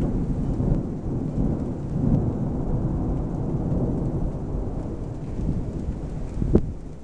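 Thunder rumbling low and long over falling rain, the rumble dying away near the end. A single sharp tap comes just before the end.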